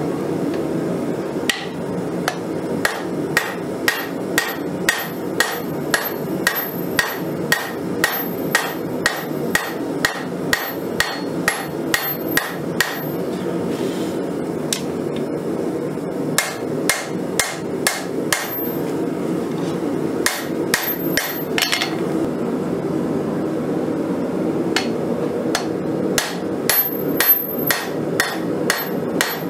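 Blacksmith's hand hammer striking a red-hot steel blade, forged from a Nicholson file, on an anvil in steady blows about two a second, pausing twice for a few seconds. A steady low rushing noise runs underneath.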